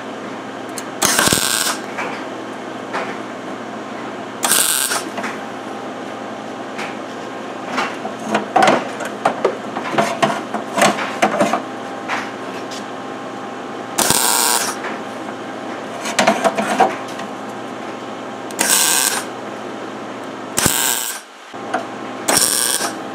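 Wire-feed (MIG) welder laying spot welds around the end of a steel radiator pipe: six crackling bursts of about half a second each, with a run of shorter crackles and clicks in the middle. The welds make a bead to hold the radiator hose on under pressure. A steady machine hum runs underneath.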